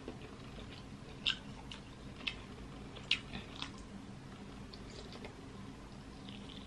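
Close-miked mouth sounds of a person eating king crab leg meat: a handful of short, irregular wet smacks and clicks from biting and chewing, over a faint steady hum.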